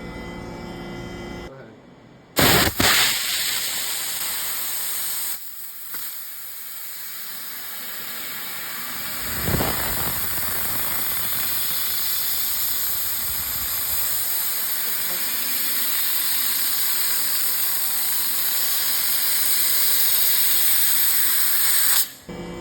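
A 2000-watt fiber laser cutting quarter-inch aluminum plate: a loud, steady hiss from the cutting head's gas jet. It starts with a sudden loud burst about two seconds in and cuts off abruptly near the end.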